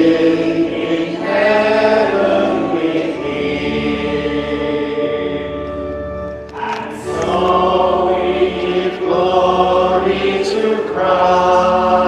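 A hymn sung by a choir over a sustained accompaniment, in long held phrases, with a brief break about six and a half seconds in.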